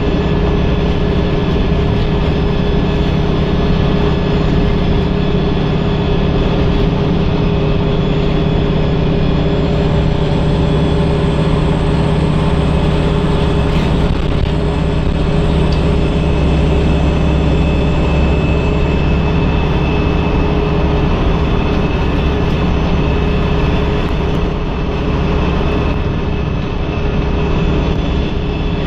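Wright StreetLite DF single-deck bus under way, heard from the rear seats: its diesel engine drones steadily under a constant low rumble of road and tyre noise, with a steady hum and no gear changes or sudden events.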